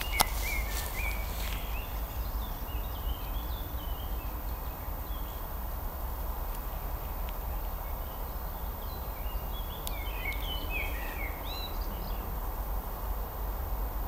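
Forest songbirds singing in clusters of short, quick chirping notes, in the first few seconds and again around ten seconds in, over a steady low rumble. A sharp click comes just after the start.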